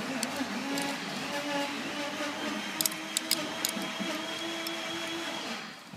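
A steady mechanical hum with a wavering drone and a thin high whine, starting and stopping abruptly. About three seconds in, a few light metallic clicks come as a tool works at the blade fastening on a metal slicing disc.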